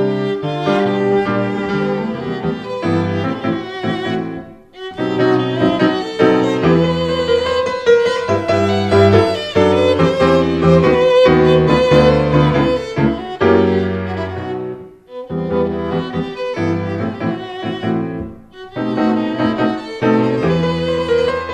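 Instrumental music: violin and cello with piano accompaniment, playing a melodic arrangement with brief breaks between phrases.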